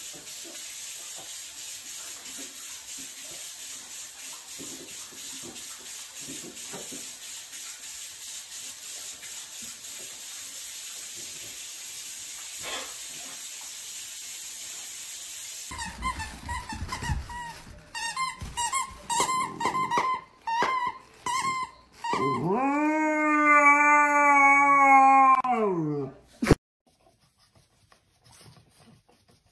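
A dog whining in a run of short, high calls, then howling in one long call of about four seconds that drops in pitch at the end. Before this there is only a steady hiss.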